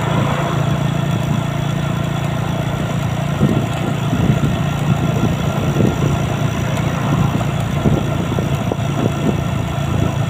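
Motorcycle engine running steadily at cruising speed on the open road, with wind buffeting the microphone in irregular gusts from a few seconds in.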